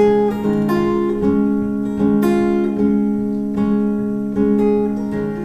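Solo acoustic guitar: picked notes and chords ringing out one after another over a sustained low string, with no singing.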